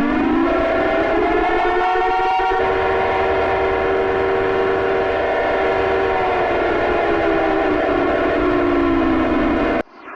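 Alarm siren sounding several tones at once: it winds up in pitch at the start, holds steadily, then winds down slowly and cuts off near the end.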